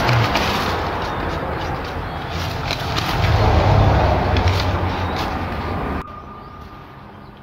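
Dry, weathered old newspaper crinkling and rustling as it is handled, over a loud low rumble. The sound drops off abruptly about six seconds in.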